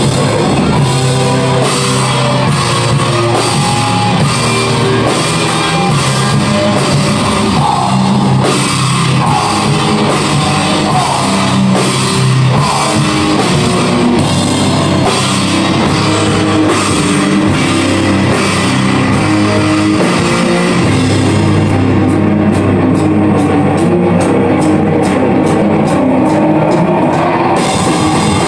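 Metal band playing live: distorted electric guitars over a full drum kit. Near the end the cymbal wash thins for a few seconds, leaving evenly spaced drum hits.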